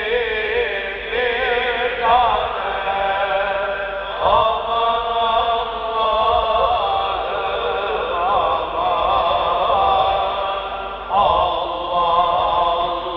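Solo voice chanting a slow, ornamented religious melody without clear words, the long held notes wavering in a heavy vibrato, in the manner of a Turkish Sufi hymn (ilahi).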